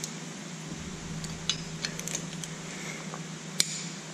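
A few light metallic clinks and a sharper click near the end as a torque wrench and socket are worked on the cylinder hold-down nuts of a Lycoming O-320 aircraft engine, over a steady low hum.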